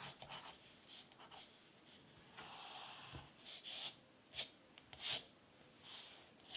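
Faint crayon strokes rubbing on paper: a longer stroke about two and a half seconds in, then several short strokes.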